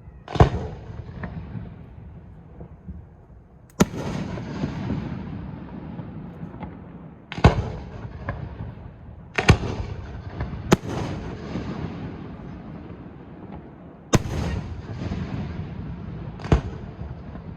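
Aerial fireworks shells bursting: about seven sharp booms a few seconds apart, each followed by a lingering rumble and crackle.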